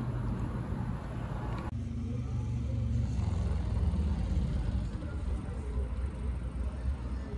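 Street traffic: cars driving past on a city street, heard as a steady low rumble. About two seconds in, the brighter background hiss drops away and mostly the low rumble remains.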